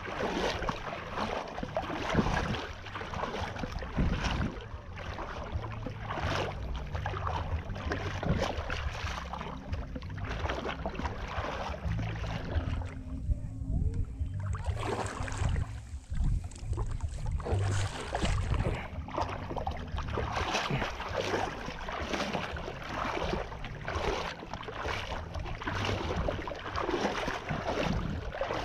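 Wind rumbling across the microphone over choppy water lapping and slapping. The crackle drops away for a moment about halfway through, leaving mostly the low rumble.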